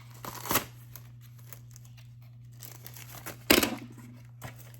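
Packaging being torn and crinkled open by hand, with a short rip about half a second in and a louder, longer rip about three and a half seconds in.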